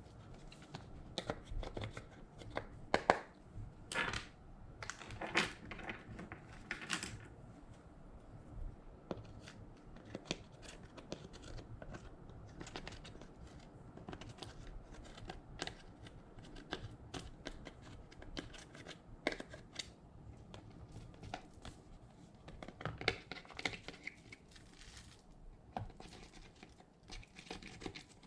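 Slime being worked by hand: irregular sticky clicks and crackles, loudest in the first several seconds and again briefly near the end.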